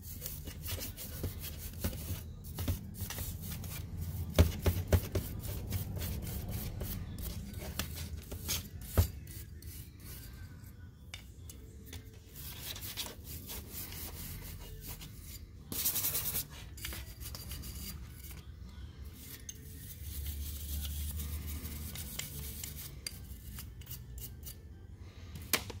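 Brass bristle brush scrubbing the cast body of a Carter BBS one-barrel carburetor wet with carburetor and choke cleaner: quick rasping strokes, interrupted by a few sharp knocks and a short hiss about two-thirds of the way through.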